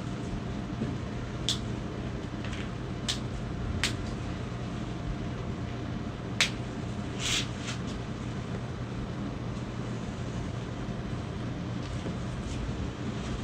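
Several short, sharp cracks from spinal joints being manipulated in a seated chiropractic twist adjustment, the loudest about six seconds in, over a steady low hum.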